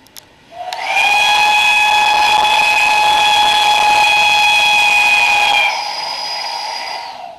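Steam locomotive whistle giving one long, loud blast. It slides up into pitch at the start and holds steady for about five seconds, then carries on quieter and thinner for about another second before dying away.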